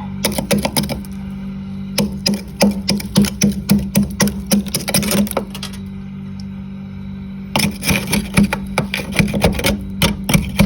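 Freezer frost being scraped off in quick repeated strokes, about three or four a second, in three runs with short pauses between. A steady low hum runs underneath.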